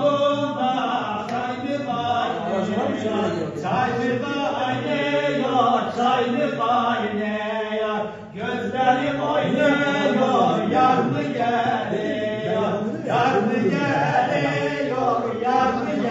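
A man singing a folk song in a chant-like style, unaccompanied, in phrases with a short break about halfway through.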